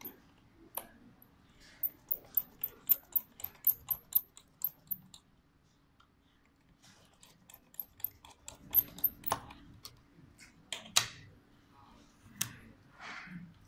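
Sharp small clicks and taps of hard plastic parts on a DPVR VR headset being handled and fitted at the strap hinge. A quick run of clicks, about four a second, lasts a few seconds. Scattered clicks and a short scrape follow, over a faint steady hum.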